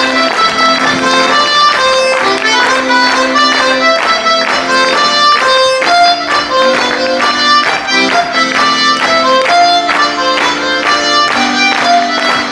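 Traditional Breton dance tune with a steady beat and a melody of quick, short notes.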